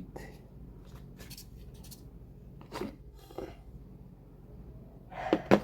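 A few faint, scattered clicks and knocks of a socket and screw-bit set being handled, with a louder cluster of knocks near the end.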